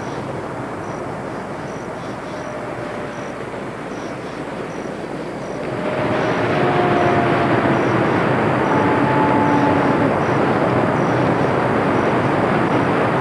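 Steady rushing noise that swells louder about six seconds in, with a few faint, long held tones over it.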